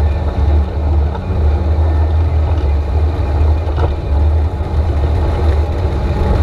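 Motorboat under way at speed towing a tube: a steady low engine rumble mixed with the rush of its churning wake.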